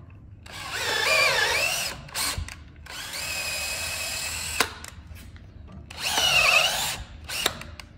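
An electric drill driving a quarter-20 tap through aluminum plate, run in about five separate trigger pulls: a couple of runs lasting one to two seconds and a few short blips. In the first run the motor's whine dips in pitch under load and then recovers.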